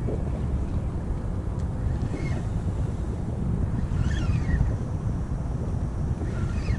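Wind buffeting the microphone with a steady low rumble, over open water. A few faint, short, high-pitched calls rise above it every couple of seconds.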